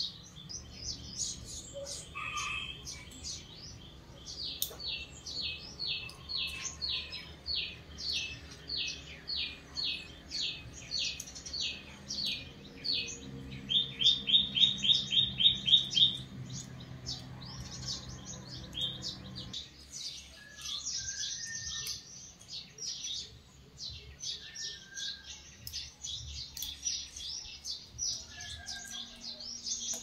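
Small birds chirping in a long run of short, quick calls, about two a second, with a loud fast trill about halfway through. A low steady hum underneath cuts off about two-thirds of the way in.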